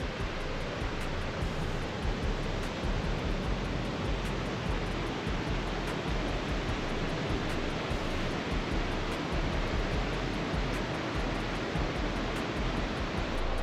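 Steady rushing of the Partnach River's mountain water through the gorge, an even, unbroken roar of water.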